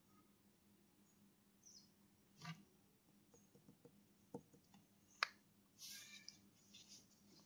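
Near silence: room tone broken by a few faint, short clicks and taps, the sharpest a little past the middle.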